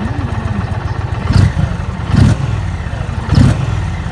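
2020 Indian Challenger's 108 cubic-inch PowerPlus V-twin, on its stock split dual exhaust, running at a steady low idle rumble, with three short throttle blips, about a second apart.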